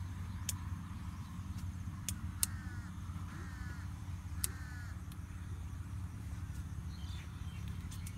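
A bird calling three short times, about a second apart, over a steady low rumble. A few sharp clicks come in the first half.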